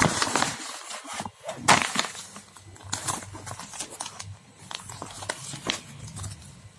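Paper mailer envelope crinkling and tearing as it is opened by hand, then a small cardboard box being handled: irregular rustles and sharp clicks, busiest in the first couple of seconds.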